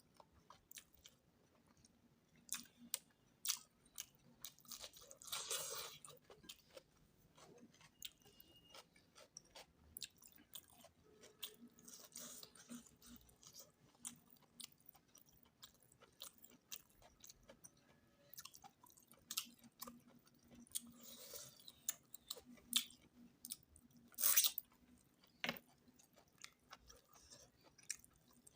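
A person eating goat-meat curry, heard close up: steady chewing with many small wet clicks and smacks of the mouth, and a few louder, longer mouth sounds.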